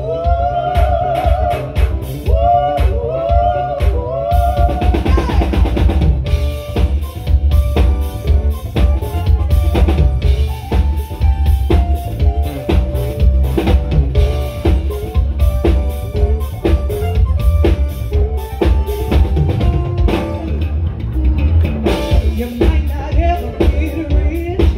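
Live band of electric guitar, keyboard and drum kit playing with a steady drum beat, a woman singing long wavering notes into a microphone over it at first. About five seconds in a cymbal crashes and the band carries on, mostly instrumental, with short repeated keyboard-like lines over the beat.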